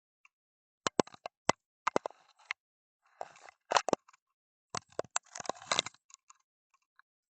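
A scatter of sharp, irregular clicks and knocks, with a couple of short hissy rushes between them.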